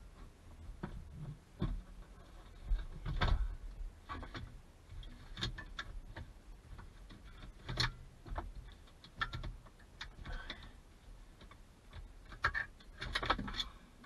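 Scattered clicks, knocks and rattles of a car seatbelt strap and its metal latch plate being handled and pulled out, with louder knocks about three seconds in and a busier run of them near the end.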